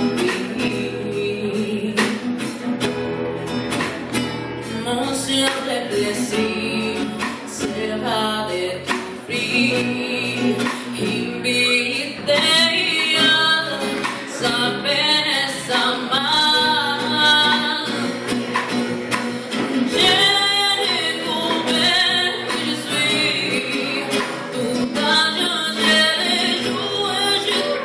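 A girl singing live into a microphone, with acoustic guitar accompaniment.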